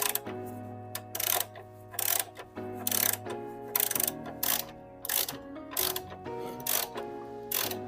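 Socket ratchet wrench clicking in short bursts of strokes as the steering-gear mounting bolts are undone, over background music.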